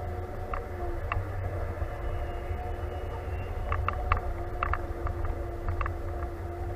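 John Deere tractor's diesel engine running steadily under way, heard inside the cab as a low rumble with a steady hum. A run of short clicks and rattles comes between about four and six seconds in.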